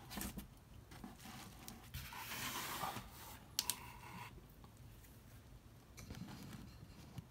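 Faint rustling and scraping as a comic book is handled and stood up against the side of a cardboard box, with a sharp click about three and a half seconds in.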